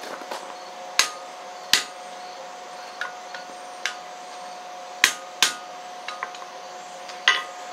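Hand hammer striking red-hot steel on an anvil: about seven sharp blows at an uneven pace with a few lighter taps among them, shaping a horseshoe rasp into the eye of a tomahawk head before it is forge-welded.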